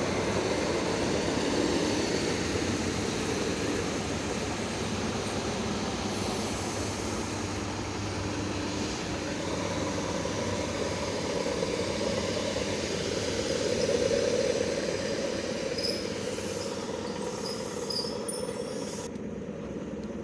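ER9M electric multiple unit rolling slowly along the platform and drawing to a stop, a steady rumble of wheels and running gear over a low electrical hum that eases off gently. A few brief, faint high squeaks come near the end.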